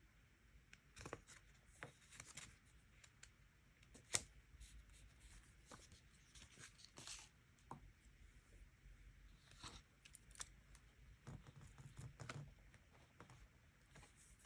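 Stickers and paper being handled by hand: quiet, irregular short rasps and light taps throughout, the sharpest tap about four seconds in.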